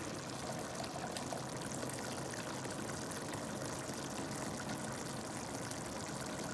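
Water pouring in a steady stream into a glass measuring jug as it fills.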